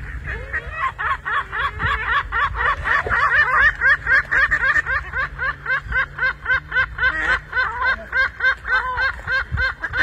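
Waterbirds calling: a long run of cackling notes, each rising then falling in pitch, about four a second, with more than one bird overlapping in the first few seconds.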